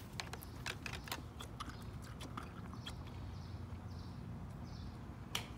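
Scattered light clicks and taps from hands working the controls of an Echo handheld gas leaf blower while it is readied to start, with one sharper click near the end; the engine is not running.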